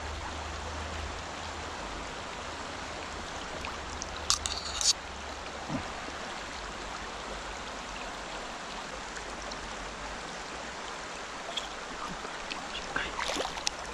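Shallow mountain stream running steadily over a stony bed, with a few brief sharp sounds about four seconds in and again near the end.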